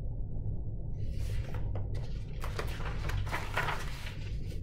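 Paper pages of a picture book rustling and flapping as they are flipped through by hand, starting about a second in.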